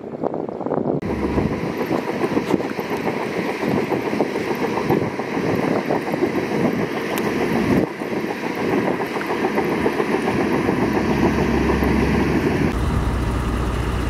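Heavy diesel construction machinery running steadily. The sound changes abruptly about a second in and again around the middle, and near the end a deeper, louder low rumble takes over.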